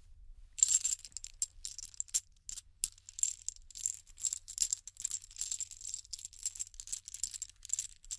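A dry, high-pitched rattling made of quick, irregular strokes. It starts about half a second in and stops just before the end.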